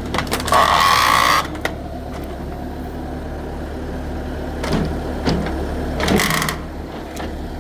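Bobcat 873 skid-steer loader's engine running steadily during demolition work, with a loud burst of noise about half a second in lasting roughly a second, a shorter one around six seconds in, and scattered knocks between.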